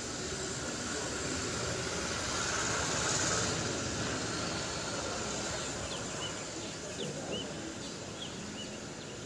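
Steady outdoor background hiss, with a few faint bird chirps about six to seven seconds in.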